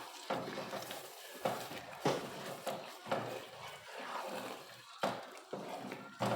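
A spoon stirring a pot of stew, scraping and knocking against the pot in strokes about a second apart.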